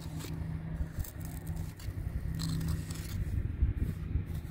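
A small metal hand pick scraping and prying at packed, caked sediment around a buried fossil shark tooth: irregular light scratches and clicks. A steady low hum runs underneath.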